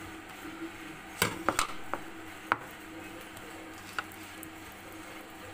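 Metal spoon clinking and tapping against a sauce bowl and a plate while sauce is scooped and spread on flatbread: a few sharp clicks about a second in, a louder one about two and a half seconds in and a single tap near four seconds, over a steady low hum.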